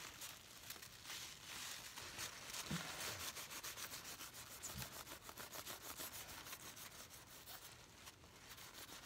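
Quick, repeated rubbing strokes at close range: a lock pick with freshly glued-on handle sides being rubbed clean of excess glue. A couple of light knocks sound about three and five seconds in.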